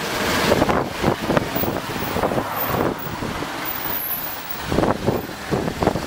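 Road traffic: cars and a light box truck driving past close by over the level crossing.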